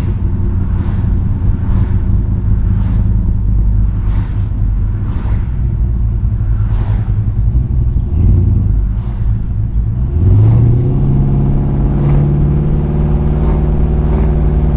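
The 1973 Chrysler Newport's 400 big-block V8 running at low revs. About ten seconds in it revs up as the car accelerates, then holds a steady higher pitch.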